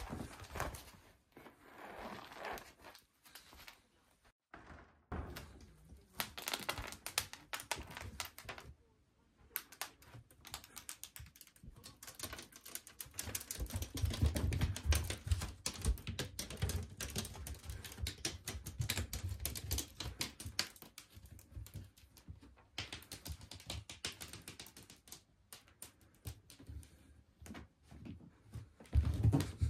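A domestic cat chasing and pouncing on a wand toy: quick irregular taps, clicks and scratches of paws and claws on tatami and a wooden floor. Heavier low thuds come in about halfway through.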